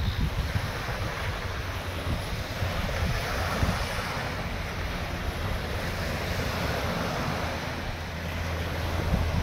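Wind buffeting the microphone with a gusty low rumble, over the steady wash of small waves breaking on the bay shore.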